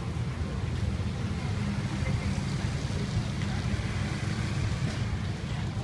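Steady low engine rumble of street traffic, with faint voices in the background.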